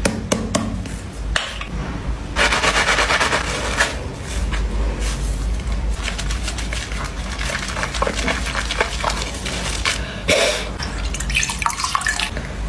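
Water running and splashing, with small wet clicks throughout; a louder rush of water starts about two and a half seconds in and lasts over a second.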